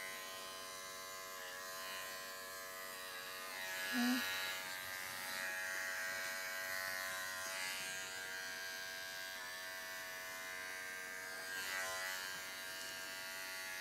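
Wahl Bravura cordless dog clipper running steadily with an even electric buzz as it clips a Maltese's coat, its pitch dipping briefly a few times. A short, louder sound stands out about four seconds in.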